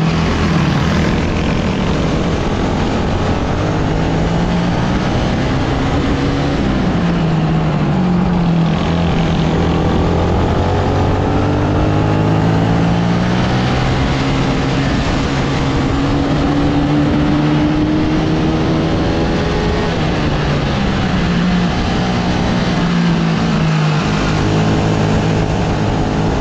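Sodikart RX250 rental kart engine heard on board at racing pace. Its pitch drops as the driver lifts for corners, climbs steadily through a long stretch of acceleration in the middle, then falls and rises again near the end.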